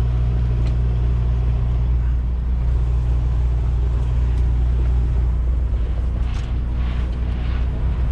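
Semi truck's diesel engine running steadily at low revs.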